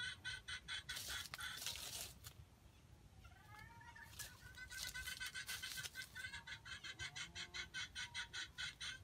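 Jungle chicken clucking in a rapid, even run of about six clucks a second, pausing briefly partway through, with a short rush of noise about a second in.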